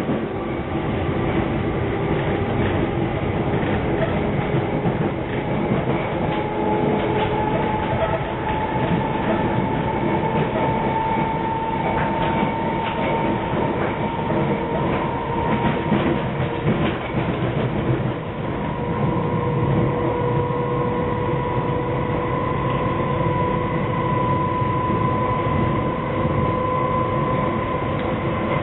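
London Underground District Line train heard from inside the carriage while running between stations: a steady rumble of wheels on the track with scattered clicks. Over it a motor whine rises slowly in pitch as the train gathers speed.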